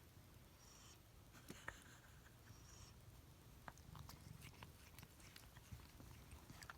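Sleeping pets snoring and breathing faintly, with two soft whistling breaths about two seconds apart near the start and a few small clicks.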